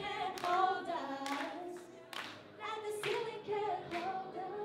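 Young female voices singing without instrumental backing over steady handclaps on the beat, about one clap every 0.8 seconds.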